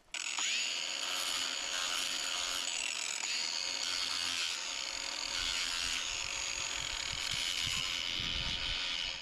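Angle grinder fitted with a sanding disc, spinning up and running steadily while sanding a small block of wood held in the hand to flatten its warped face; it cuts off sharply at the end.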